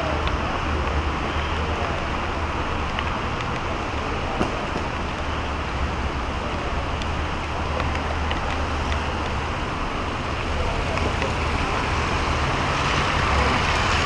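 Traffic on a rain-wet street: a steady hiss of tyres on the wet road over the low rumble of passing cars' engines, growing a little louder near the end as a car passes close.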